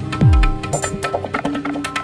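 Background music with a beat: sharp percussion clicks over held notes, and a deep bass hit that slides down in pitch near the start.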